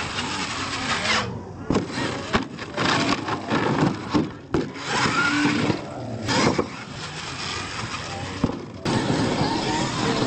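Radio-controlled monster truck driving and spinning on loose gravel: its motor revving up and down and its tyres scrabbling and throwing gravel, with spectators' voices behind.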